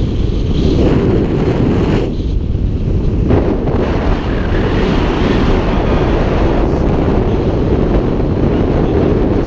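Strong wind buffeting the camera microphone in a heavy, steady rumble, with a hiss of small waves washing up onto the sand.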